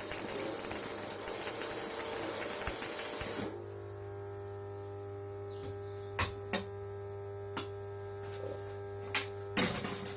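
Metalworking noise in a home shop: a harsh, steady hiss of metal being worked for about three and a half seconds, then several sharp metallic clicks and taps over a steady hum.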